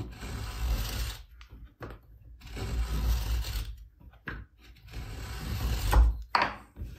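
Screw point of a homemade dowel marking gauge scratching a line along the grain of a spruce board, three strokes of about a second each, with a few light clicks near the end.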